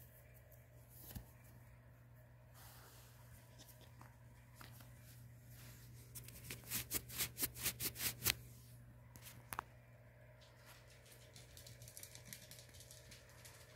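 A quick run of about a dozen scratchy rustling strokes, about five a second, with a few faint clicks before and after.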